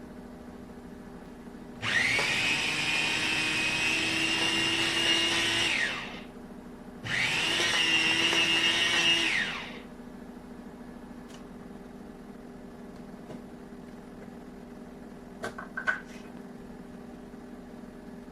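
Wancle electric food processor's motor run in two pulses, about four seconds and then two and a half seconds, its whine rising as the blades spin up and falling away as each pulse ends. A few sharp clicks near the end.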